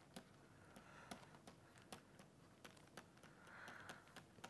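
Near silence with faint, irregular clicks and taps of a stylus writing on a pen tablet, and a brief soft scratch near the end.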